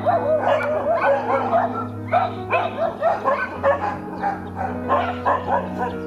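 Village dogs barking and yelping in quick, overlapping short calls as they scuffle, with a brief gap about two seconds in and fewer calls near the end, over steady background music.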